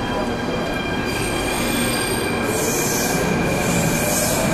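Athens Metro train running on the rails: a steady rumble with thin high tones over it. From about halfway through, a high hissing squeal from the wheels swells and fades in pulses.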